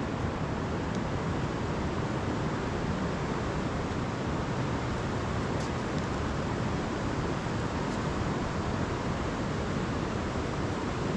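Steady rushing noise of wind blowing across the microphone, strongest in the low range, with no distinct events.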